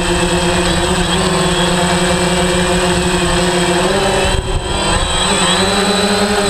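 DJI Phantom 3 quadcopter's propellers and motors running with a steady buzzing hum. After about five seconds the pitch rises and wavers as the drone manoeuvres.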